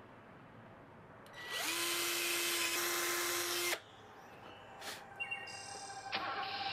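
Power drill boring a pilot hole into stud lumber. The motor spins up quickly to a steady whine about a second in, runs for about two and a half seconds, then stops abruptly.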